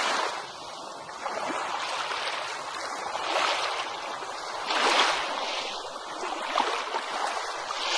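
Ocean waves washing onto a beach: a steady wash of surf that swells and falls, with the strongest breaks about three and a half, five and eight seconds in.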